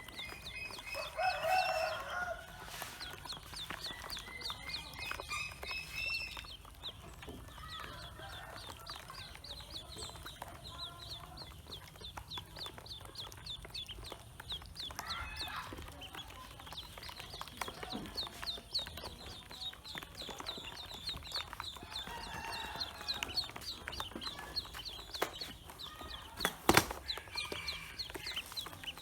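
Pekin ducklings peeping almost without pause in quick high-pitched series, with a few lower calls mixed in. A single sharp knock sounds near the end.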